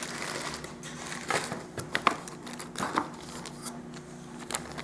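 Packaging being handled: plastic crinkling and rustling, with a few light clicks and taps.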